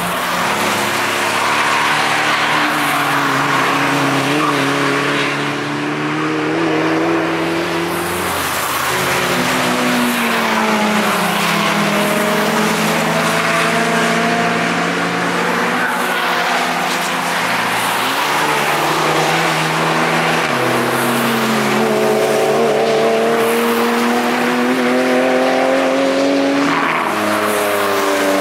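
Several cars on a race track driving past one after another, their engines revving hard through a corner. The engine notes overlap and rise and fall in pitch.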